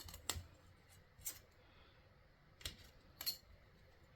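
A handful of faint, sharp clicks and taps, about five spread unevenly over four seconds: small tools and clay being handled on a craft desk.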